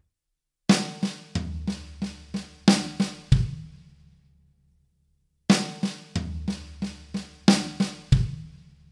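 Drum kit (Tama Starclassic Performer) playing a slow nine-note sextuplet fill phrase twice, with a short pause between. Each phrase is a run of single snare strokes with a floor tom hit ringing under them as the third note, and it ends on a bass drum kick.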